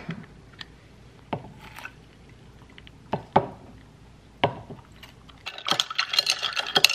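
Lemon juice squeezed with a hand-held lemon squeezer into a glass mason jar of ice water, with scattered knocks and clicks. About five and a half seconds in, a glass straw stirs the ice in the jar, giving quicker clinking and rattling.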